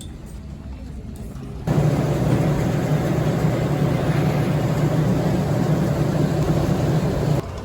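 Steady, loud rushing hum of aircraft machinery during boarding, starting abruptly about two seconds in and cutting off abruptly near the end.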